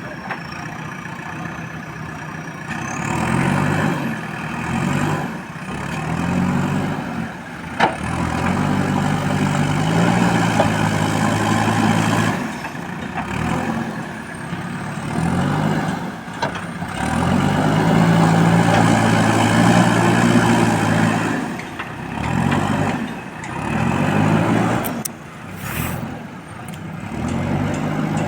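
JCB 4DX backhoe loader's diesel engine working under load, revving up and dropping back in repeated surges a few seconds apart as it strains to shift a stuck dumper.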